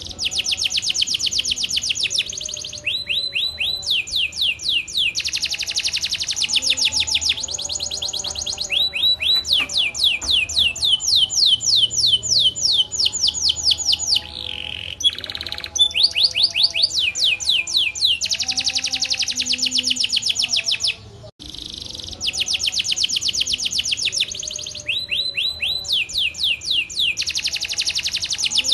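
Domestic canary singing a long, continuous song of fast high-pitched trills and rolls, changing from one trill to another every second or two, with a brief break about three-quarters of the way through.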